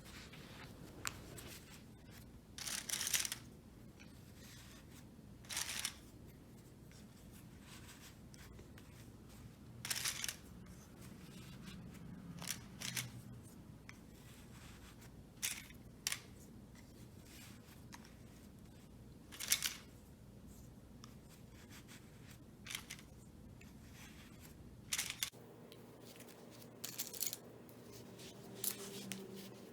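Wooden popsicle sticks clicking and scraping against one another as they are woven under and over into a chain, with short, faint taps every couple of seconds, sometimes two in quick succession.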